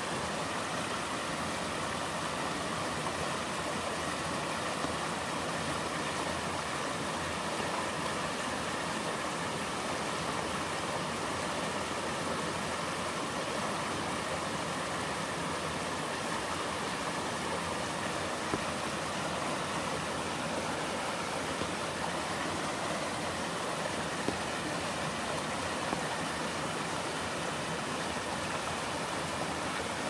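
Mountain stream sliding down a sloping rock slab in a low slide waterfall, a steady, unbroken rush of water.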